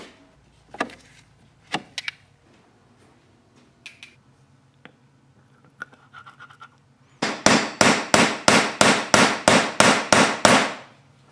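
Workshop work sounds: a few scattered light clicks and knocks, then a fast, even run of about a dozen loud sharp bursts, roughly three a second, that stops suddenly.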